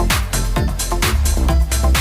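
Electronic dance music with a steady four-on-the-floor beat and a heavy bass line.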